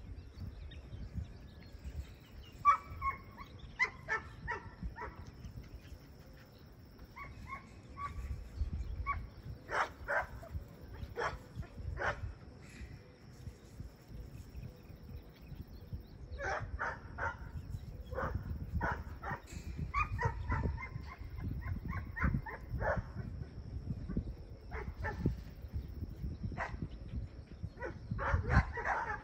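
Dog barking in repeated bursts, with wind rumbling on the microphone.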